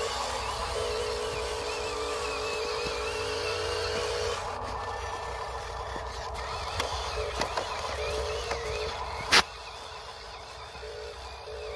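Steady whine of small electric motors, dropping out about four seconds in and coming back near the end, over a low rumble. A few light clicks, then one sharp loud click about nine seconds in.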